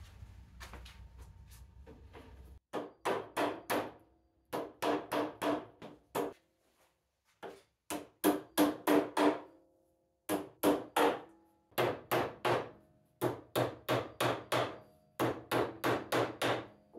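Small hammer tapping the edge of a hardboard backer panel to fasten it onto the back of a frame, in quick runs of four or five light strikes with short pauses between, each strike ringing briefly.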